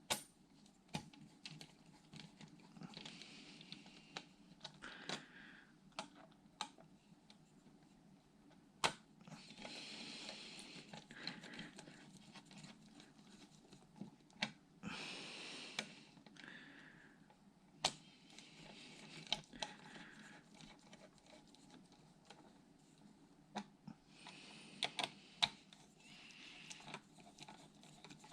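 Small computer parts being handled and fitted by hand: faint scattered clicks and taps, with a few short stretches of rustling and scraping.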